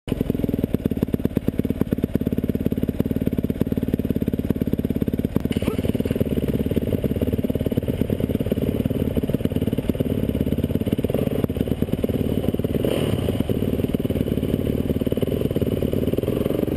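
Dirt bike engines idling with quick, even firing pulses, the note lifting slightly a little past the middle.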